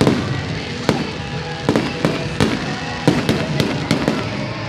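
Aerial fireworks bursting overhead: a rapid, irregular series of sharp bangs, roughly two a second, over background music.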